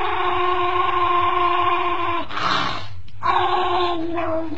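A dog howling in two long, steady notes, its muzzle held and squeezed in a person's hand, with a short breathy rush between the notes.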